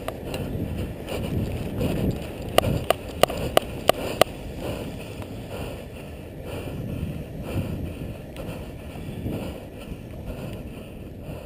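Airsoft gun firing semi-automatic, about six sharp shots in quick succession, roughly three a second, around three seconds in, over steady wind noise and movement rustle on the microphone.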